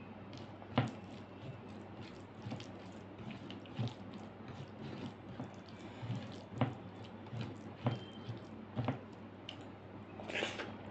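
Wet squelching and clicking of rice and dal being mixed and eaten by hand, with sharp wet smacks about once a second. A longer wet smack near the end as a handful goes into the mouth.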